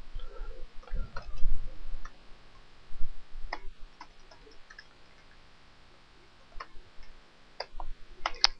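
Computer keyboard typing: irregular, sparse key clicks. A few dull low knocks come about a second in.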